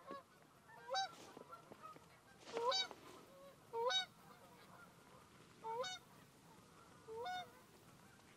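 Geese honking: about five short honks, each rising in pitch, spaced a second or two apart.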